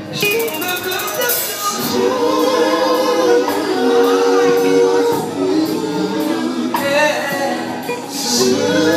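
Live singing into a microphone: a man sings long, held notes over backing music and other voices, with a shimmer of percussion near the start.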